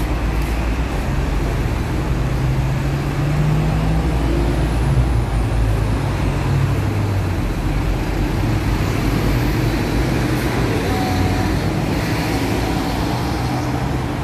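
Busy city street traffic: the steady hum of buses and cars passing on the road, with a large vehicle's engine running close by for the first several seconds.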